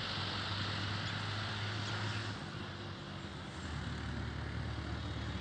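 An engine running steadily with a low hum that settles a little lower about halfway through, over a steady hiss.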